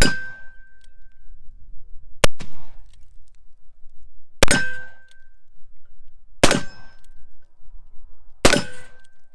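Five shots from a .44 Remington New Model Army black-powder cap-and-ball revolver, about two seconds apart. After all but the second shot comes a short ringing clang of a hit steel target.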